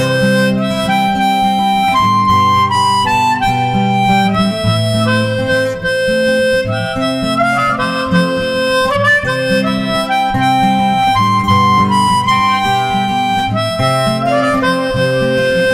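Instrumental break in a folk song: a reed wind instrument plays a sustained melody over a guitar accompaniment.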